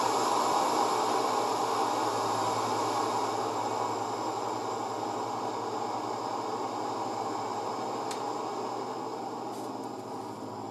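Gas torch flame running steadily into a two-brick forge, a steady hiss that gradually gets quieter as the torch is turned down on its fine adjustment valve.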